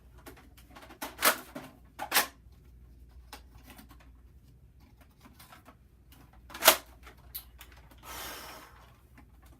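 Rummaging and handling things while searching for a toy blaster: a few sharp knocks and clacks, the loudest about two-thirds of the way through, with lighter ticks between and a short rustle near the end.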